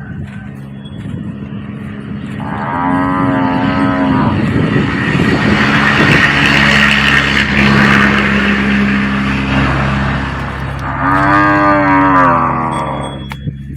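Cattle mooing: two long, clear moos, about 3 and 11 seconds in, with a louder, rougher bellow between them. A steady low hum runs underneath.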